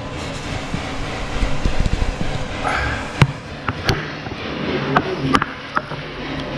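Low rumbling handling noise from a hand-held phone camera, with several sharp clicks and knocks in the second half.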